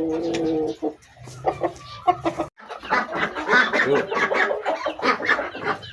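Chickens clucking: one held call at the start, then a busy run of short clucks mixed with scuffling knocks.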